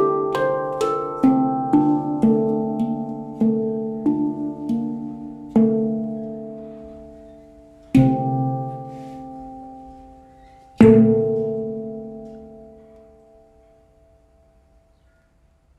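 D Low Kurd 14-note handpan of Ember Steel played by hand: a run of quick ringing notes that slows, then two single strikes, the last and loudest left to ring out and fade away.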